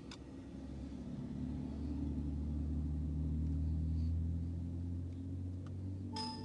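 A car driving past, its engine and tyre rumble swelling to a peak about four seconds in and then fading, over a steady low engine hum. A short electronic beep sounds near the end.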